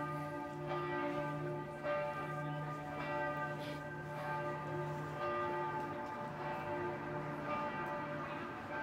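Church bells of Mariazell's pilgrimage basilica pealing for noon: several bells struck in overlapping succession, a fresh stroke about every second, their long tones ringing on together.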